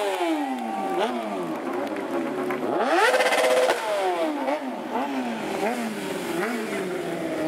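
Kawasaki Ninja sport bike engine revved up and down over and over during stunt riding, with the hardest, highest rev about three seconds in and a run of shorter blips after it.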